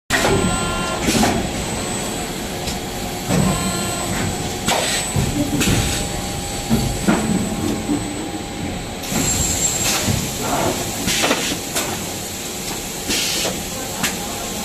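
Powerjet EB180U extrusion blow moulding machine running: a steady mechanical hum with steady tones, broken several times by short sharp air hisses from its pneumatics as the three-cavity mould cycles.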